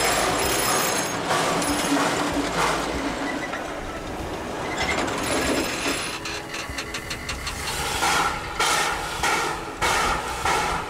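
Steam locomotive standing with steam hissing from beneath it. About six seconds in, a regular pulsing beat starts, a little under two beats a second, and grows louder toward the end.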